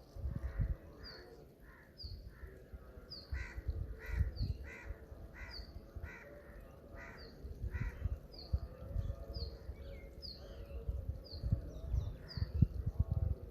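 Birds calling: one gives a run of repeated harsh calls, about two a second, through the first half, while another repeats a short high note about every two-thirds of a second. Irregular low rumbling bursts sit underneath.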